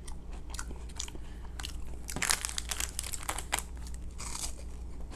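Close-up crunching and chewing of a chocolate-cream-filled waffle wafer, in irregular crisp crackles, loudest a little over two seconds in.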